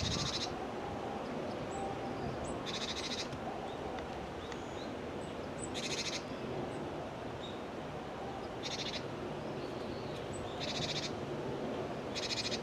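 A wild songbird giving short buzzy calls, six in all, spaced two to three seconds apart, with a few faint high chirps between them over steady outdoor background noise.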